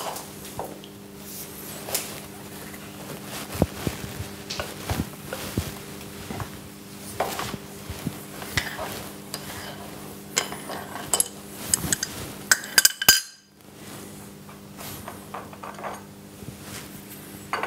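Abene milling machine's drawbar being undone with a hand wrench at the top of the spindle: scattered metal clinks, clicks and scrapes of the wrench and drawbar nut, with a denser flurry of sharp clicks about two-thirds of the way through. A steady low hum runs underneath.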